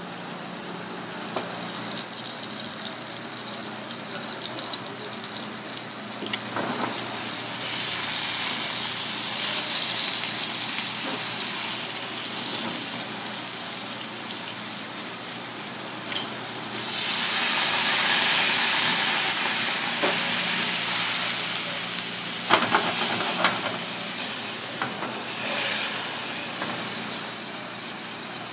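Sea robin (gurnard) fillets sizzling as they fry in oil in a small pan over a gas flame. The sizzle swells louder twice, and a few sharp clicks of chopsticks or the pan come near the end.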